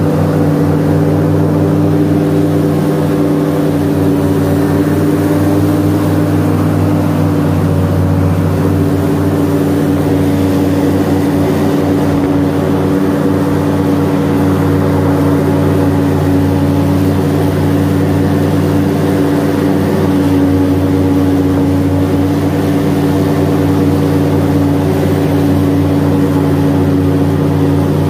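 Airboat engine and propeller running steadily with the boat under way: a loud, constant drone.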